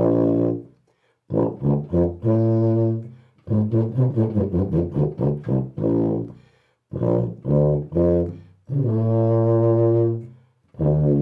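Tuba played through a 3D-printed crystal PLA copy of a deep-cupped Denis Wick mouthpiece: a phrase of low notes with a quick run of short notes in the middle and a few longer held notes.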